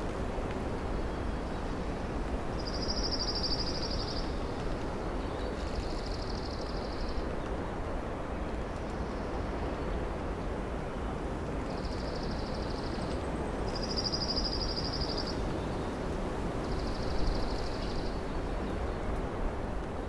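Songbirds singing high, fast trills about a second long, five times, some louder and some fainter, over a steady low rushing.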